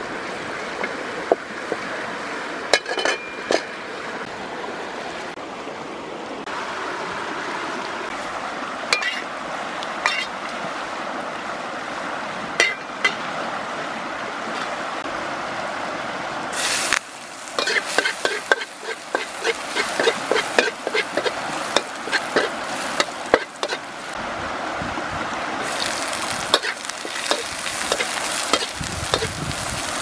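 A wood fire crackling, with a steady hiss and occasional sharp pops. About seventeen seconds in, chopped garlic and lemongrass fry in oil in a metal wok, sizzling, while a metal ladle scrapes and clinks against the pan in quick strokes as they are stirred.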